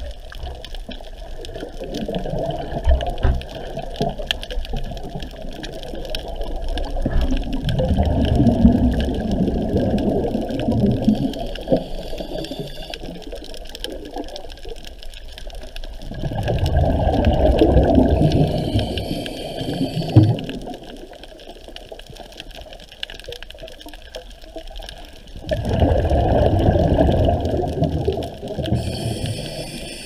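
Muffled underwater water noise picked up by a submerged camera, rising and falling in three long swells of several seconds each.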